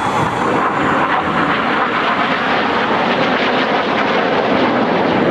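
Steady jet noise from a formation of BAE Hawk T1 jets flying an aerobatic display, their turbofan engines heard as one continuous, even rush of sound.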